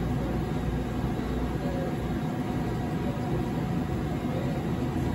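Steady hum and hiss of a CNC EDM hole-drilling machine running, with no sudden events.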